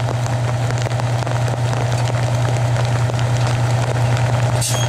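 Fire truck engine idling with a steady low drone, with light clicks and a brief hiss near the end.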